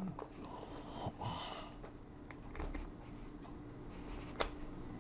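Faint handling noise of a 3.5 mm audio cable plug being worked against the Skullcandy Crusher ANC 2 headphones' ear-cup jack to check its fit, soft rubbing and ticks with one sharper click about four and a half seconds in.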